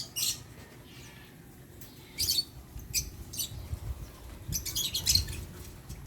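Birds chirping in short high-pitched bursts, a few scattered notes and then a quick run of chirps about five seconds in, over a faint low rumble.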